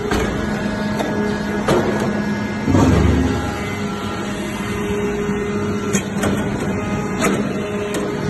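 Hydraulic metal-chip briquetting press and its hydraulic power unit running: a steady machine hum with a low tone, sharp clicks at uneven intervals, and a louder low surge about three seconds in.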